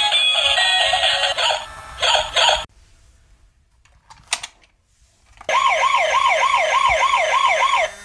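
Background music that cuts off, then near silence with a single click. After that, a toy police motorcycle's electronic siren starts up: a fast rising-and-falling yelp, about three sweeps a second, over a steady low hum.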